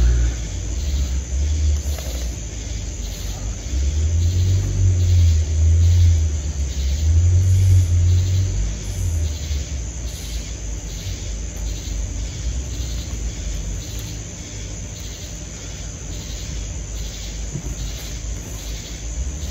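Low, uneven outdoor rumble that swells and fades, loudest from about four to nine seconds in.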